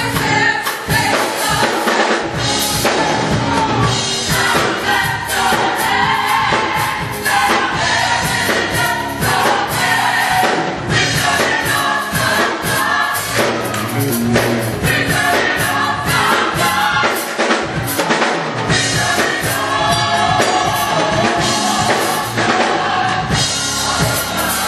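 Gospel choir singing with band accompaniment, drums keeping a steady beat under the voices.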